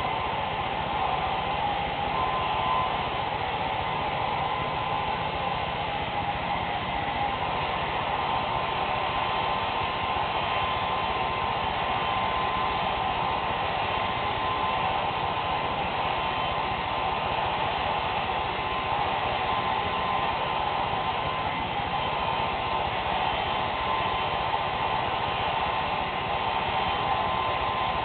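Handheld hair dryer running steadily, a constant rushing blow of air with a faint steady whine from its motor, as it dries long wet hair.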